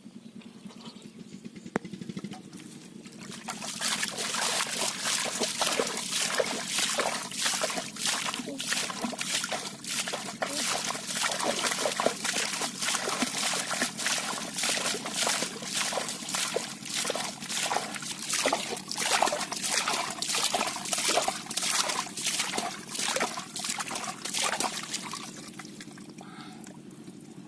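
Hands scooping muddy water out of a shallow hole and flinging it aside: a fast, uneven run of splashes and sloshes, a few each second, that starts a few seconds in and stops a couple of seconds before the end.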